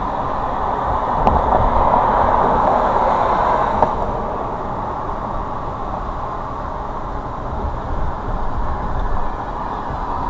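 Steady road and tyre noise of a car driving. It swells about a second in and eases after about four seconds, with a sharp click near the fourth second.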